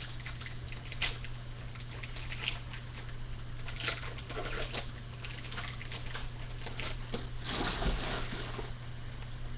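Foil wrapper of a baseball card pack crinkling and tearing open by hand, then the cards being slid out and handled, a string of small crackles and clicks over a steady low hum.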